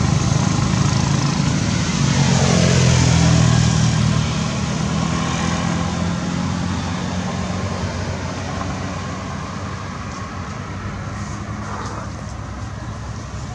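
A motor vehicle's engine passing by: a steady low engine hum, loudest about two to four seconds in with its pitch dropping, then fading away.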